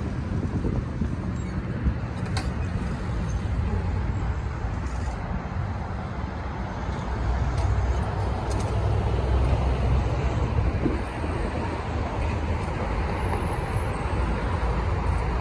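Steady city street traffic noise from cars driving along a wide multi-lane road, swelling for a few seconds about halfway through as vehicles pass close.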